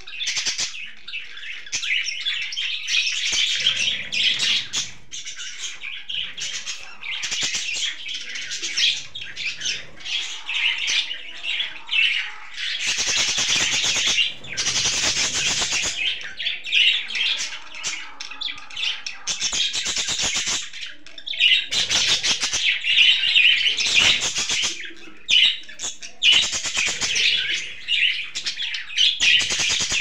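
A flock of budgerigars chattering and chirping without a break, many high calls overlapping, growing denser in a few louder stretches.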